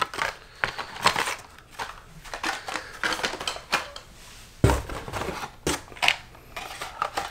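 Hot Wheels blister-packed cars, cardboard cards with plastic bubbles, being handled and pulled from a cardboard case: a run of sharp clicks, crinkles and taps, with a dull thump about four and a half seconds in.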